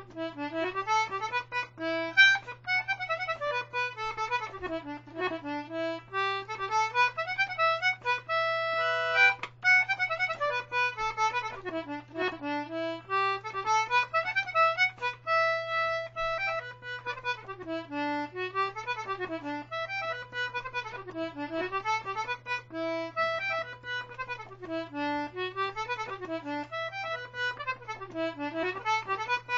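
A 19th-century George Jones G/D Anglo concertina playing a reel solo: quick runs of notes rising and falling, with a couple of briefly held chords.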